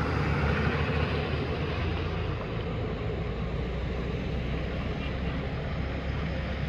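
Steady low rumble of heavy diesel truck engines running, with passing road traffic and wind on the microphone.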